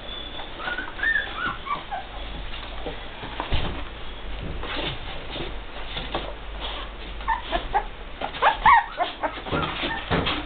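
Newborn puppies whimpering in short, high, falling squeaks, in a cluster about a second in and again near the end, with rustling and soft knocks as they move about.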